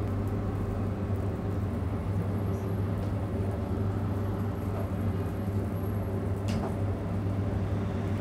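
Steady low machine hum of a kitchen, with a couple of faint light clicks.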